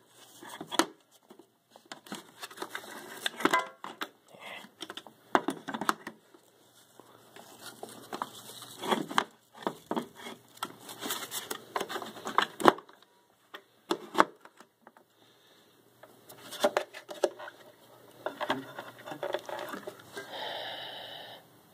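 Irregular clicks, knocks and rattles of hard plastic vacuum parts being handled, with brush rolls set down and fitted by hand; no motor running.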